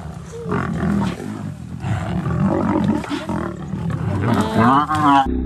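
Lions growling and roaring while attacking a Cape buffalo, with a higher wavering call about four and a half seconds in. The sound cuts off abruptly just before the end.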